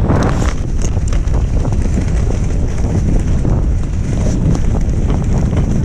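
Wind buffeting an action camera's microphone, a loud steady low-pitched noise.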